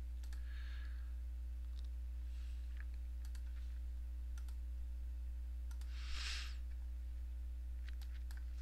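Scattered light clicks of a computer mouse and keyboard over a steady low electrical hum, with a short soft rustle about six seconds in.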